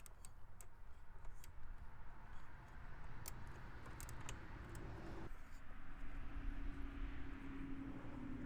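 Scattered light metallic clicks of hand tools on the bolts. From about the middle a steady low hum runs underneath.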